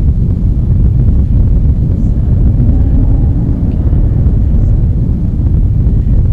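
A loud, steady low rumble with no clear rhythm or pitch.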